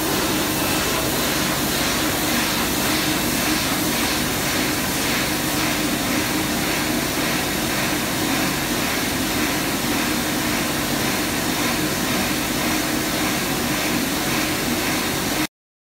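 Automatic aerosol-can water-bath leak testing machine running: a steady mechanical hum with a hiss over it. It cuts off suddenly near the end.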